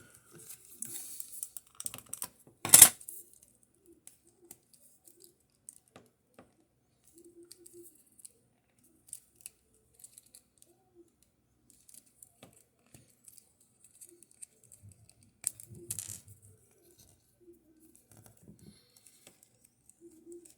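Small plastic action-figure parts being handled as a head is fitted onto the figure's neck peg: scattered light clicks, one sharp click a little under three seconds in, and another run of clicks and rubbing around the middle-to-late part.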